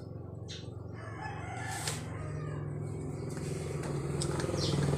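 A small engine running steadily, growing louder toward the end, with a rooster crowing in the background.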